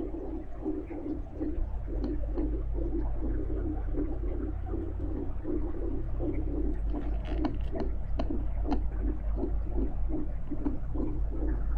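Fetal heartbeat picked up by a Doppler monitor: a fast, even pulse of nearly three beats a second, over a steady deep rumble of underwater ambience.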